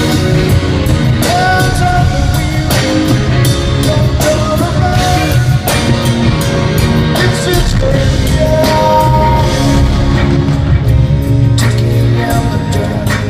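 A live rock band playing loudly: a drum kit beat under a steady bass line, with guitar and held melodic notes on top.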